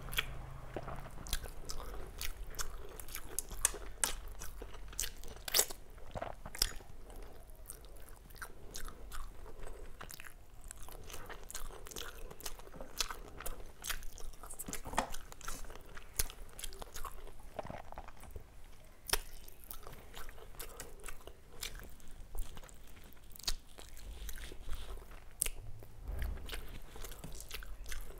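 A person chewing and eating with the mouth, a meal of rice with dal and fish curry: many irregular, sharp mouth clicks and crunches.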